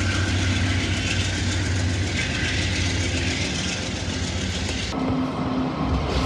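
CTrail GE P40DC diesel locomotive running under power as its train moves away, a steady engine drone under wheel and rail noise. About five seconds in, the sound cuts abruptly to another diesel locomotive, an Amtrak locomotive, with a steady low hum.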